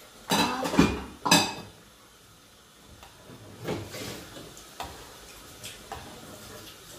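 Metal spoon or ladle scraping and knocking in a stainless steel soup pot: two loud scrapes in the first second and a half, then a few light clinks.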